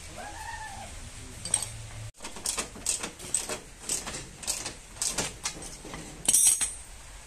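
Metal car parts and tools clinking and knocking as they are handled, a quick run of sharp clinks with a louder ringing clatter about six seconds in. A short squeak rises and falls in the first half second.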